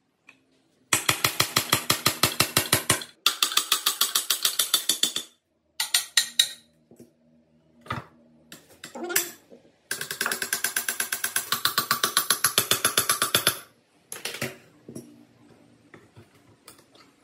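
Ratchet wrench clicking in long, rapid runs of about ten clicks a second while working fasteners on a motorcycle engine's crankcase. Between the runs come scattered metal knocks and clunks as the crankcase half is handled and lifted off.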